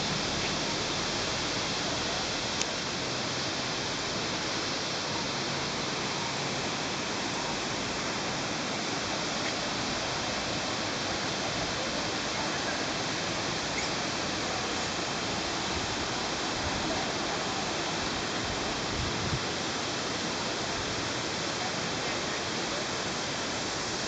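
Steady rush of Ravana Falls, water cascading down tiers of rock, heard as an even wash of noise. A single faint click sounds about two and a half seconds in.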